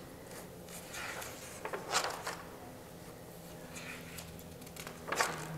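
Pages of a spiral-bound booklet being turned on a wooden table: a few short paper rustles and flaps, the loudest about two seconds in and another near the end, over a faint steady hum.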